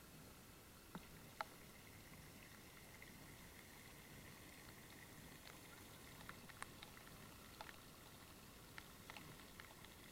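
Near silence: a faint steady hiss with scattered small clicks and ticks, more of them in the second half.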